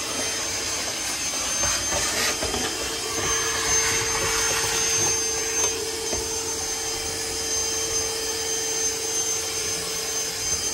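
Small Milwaukee 'lunchbox' shop vac running steadily with a constant motor whine, its hose nozzle sucking dirt and debris off a truck cab's rubber floor.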